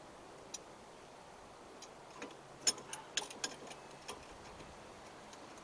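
Light, sharp clicks and clinks of hand tools and brake parts being handled, a loose scatter of about a dozen ticks bunched in the middle.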